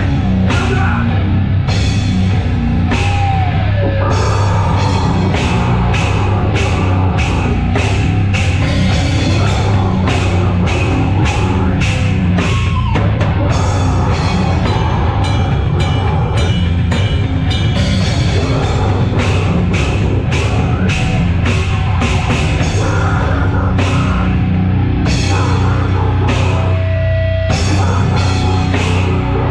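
Loud live heavy metal band playing: heavily distorted guitar and bass with a drum kit pounding out dense, fast hits, including a couple of short guitar pitch slides.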